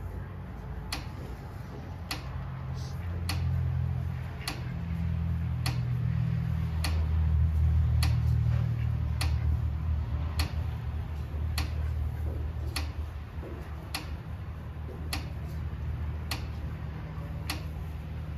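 A sharp tick repeating evenly about once every second and a bit, over a low rumble that swells in the middle and then settles.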